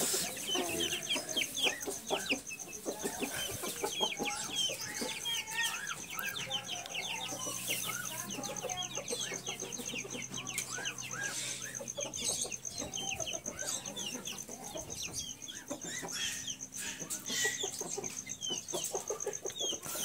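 A flock of young chicks peeping in many quick, overlapping high chirps, mixed with chicken clucking.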